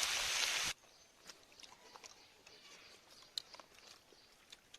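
Fish frying in hot oil sizzles loudly, then cuts off suddenly under a second in. Faint scattered small clicks and ticks follow, with one sharper tick near the middle.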